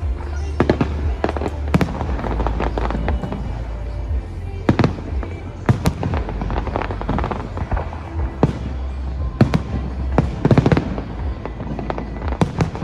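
Aerial fireworks going off: irregular sharp bangs and crackles, some in quick clusters, over the display's accompanying music.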